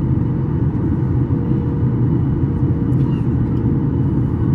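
Steady low cabin rumble inside a Boeing 737 MAX 8 airliner, the mix of airflow and its two CFM LEAP-1B engines, with a faint steady hum above it.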